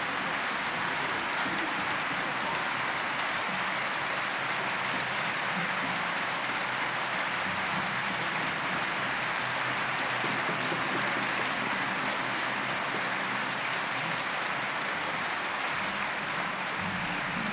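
A large audience applauding steadily, the clapping holding at an even level without a break.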